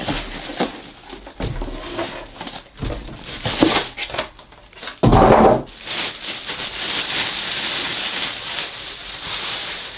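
Packing being taken off a PC case: handling knocks at first, then a short loud squeak about five seconds in as the foam end cap is pulled free, then a plastic bag rustling steadily as it is drawn off the case.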